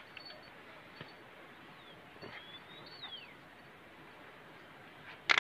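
Faint outdoor hiss with a thin bird call that glides up and then down about halfway through, a few soft scuffs, and one sharp knock near the end.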